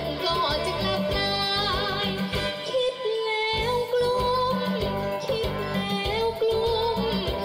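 A 12-year-old girl singing an upbeat Thai luk thung song into a microphone over the song's original backing track, with a steady beat and held, wavering notes. The beat drops out briefly about three seconds in.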